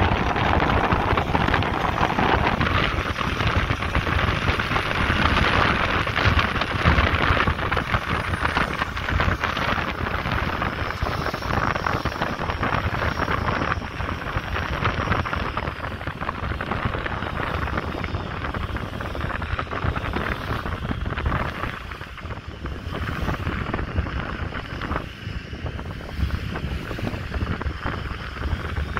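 Wind buffeting the microphone over the steady noise of a motorboat under way, its engine running and its wake churning, a little quieter in the second half.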